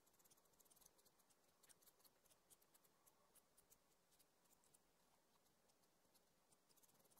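Faint scratching of a sanguine pencil hatching on paper, many short strokes in quick succession.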